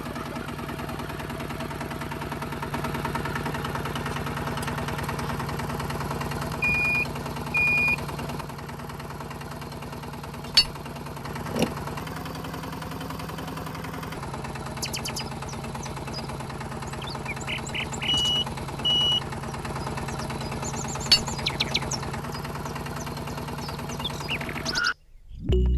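Small electric motor of a DIY mini tractor running with a steady hum, its pitch shifting slightly about halfway through. A few sharp clicks and short high chirps are heard over it.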